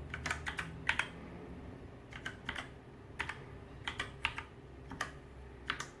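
Typing on a Redragon Mitra (K551) mechanical keyboard with Outemu brown tactile switches: a dozen or so keystrokes at an uneven pace as a password is entered.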